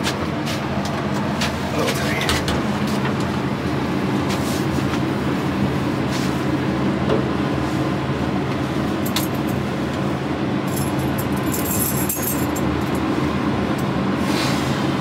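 Elevator cab running: a steady mechanical hum with several low tones, with a few clicks and knocks in the first few seconds.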